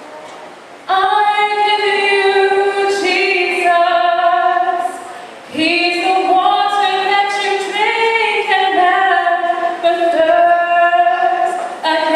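A woman singing a gospel song solo, holding long notes. She comes in about a second in and breaks off briefly for a breath a little before the middle.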